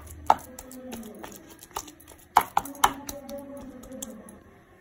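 Oiled hands mixing and squeezing a thick vegetable-and-gram-flour batter in a plastic bowl: wet squishing with a few sharp slaps and clicks, the loudest about a third of a second in and twice more around the middle.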